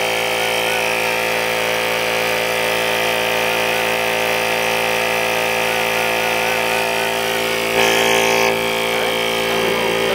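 A motor running steadily with a constant hum, and a short burst of hiss about eight seconds in.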